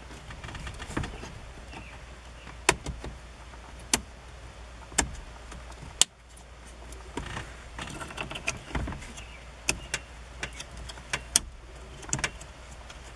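Plastic wiring connectors being pushed and snapped into the back of a pickup's instrument cluster, with plastic rustling and rubbing as the harness and cluster are handled. A dozen or so sharp clicks are scattered through it, irregularly spaced.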